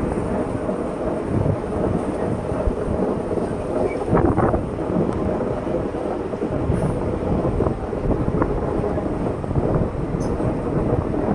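Passenger train running along the track, a steady low rumble of wheels and coach, with a brief louder clatter about four seconds in.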